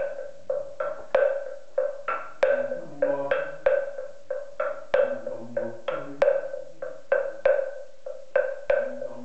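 A moktak, the Korean Buddhist wooden temple block, struck in a steady, quick rhythm of about three strokes a second, with a low voice chanting beneath it.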